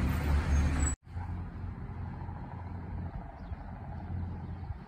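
Fire engine's engine running as the truck drives past, a loud steady low rumble that cuts off abruptly about a second in. A quieter steady low rumble follows.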